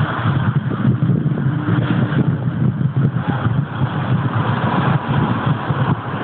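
Soviet-built Ev-type metro train pulling out of the station: a steady, loud low rumble from its traction motors and running gear.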